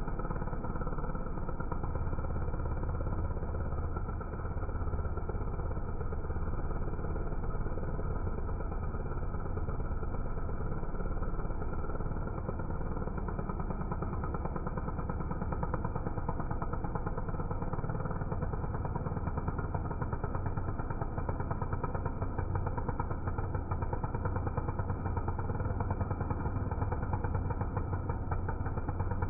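Chainsaw running steadily while cutting wood, with a brief dip in level about four seconds in.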